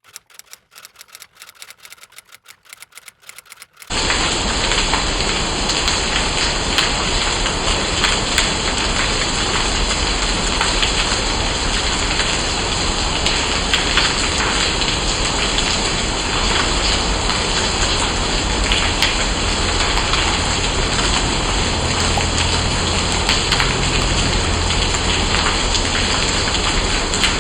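Steady heavy rain falling, starting suddenly about four seconds in after a quieter stretch of fast, faint ticking.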